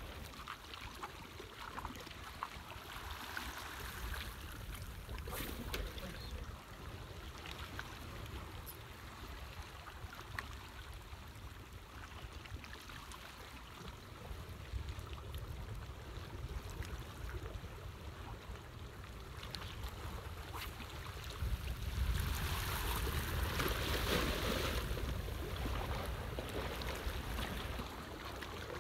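Water sloshing and lapping over a low rumble, with a few small knocks. It swells louder for a few seconds about 22 seconds in.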